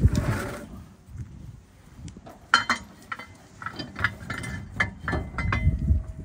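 Metal clinks and knocks from a van's under-body spare-tyre carrier and its long crank rod as the spare wheel is hooked on and raised. A heavier knock comes right at the start, then scattered sharp clicks.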